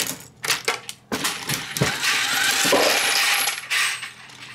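Dillon 1100 progressive reloading press being cycled on 9mm brass: a few sharp metallic clanks, then, about two seconds in, a longer coin-like jingle of brass cases clinking together.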